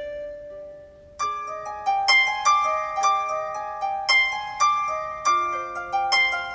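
Background music of plucked, harp-like notes: a single ringing note, then from about a second in a louder, steady run of plucked notes, roughly two a second.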